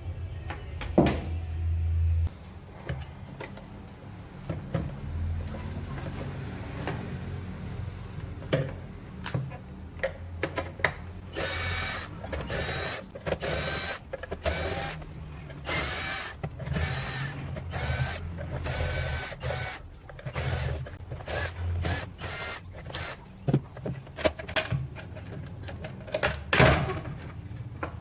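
A small power tool runs in a series of short bursts, each a second or less, with clattering and knocking of parts being handled.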